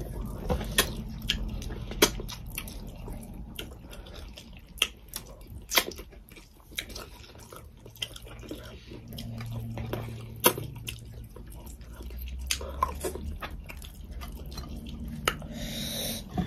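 Close-up wet chewing and lip-smacking of people eating rice and chicken curry by hand, with many short, sharp clicks scattered irregularly.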